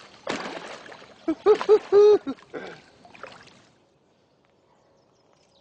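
A big hooked grass carp splashing and thrashing at the surface of the water. Over the splashing, about a second in, comes a quick run of four loud short cries, the last one drawn out.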